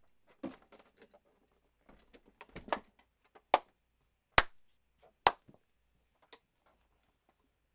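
Three sharp hand smacks, a little under a second apart, with fainter taps and rustling around them.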